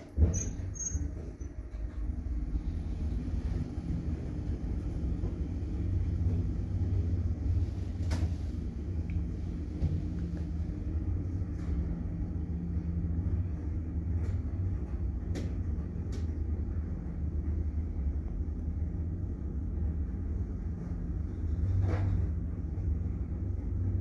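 Passenger lift car of a 2022 ZEMM lift travelling downward, heard from inside the cab: a steady low rumble and hum of travel, with a few faint clicks along the way.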